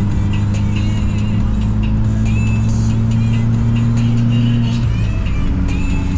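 Music with a deep, sustained bass note that changes just before the end, over steady road noise from the car.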